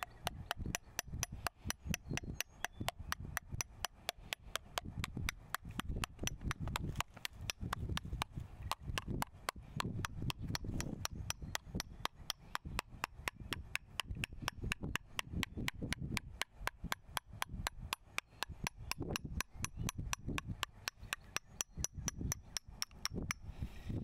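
A steel wrench tapping steadily on gasket paper held against a metal flange, about three or four light taps a second, stopping near the end. The taps cut the paper along the flange's edges to make a gasket.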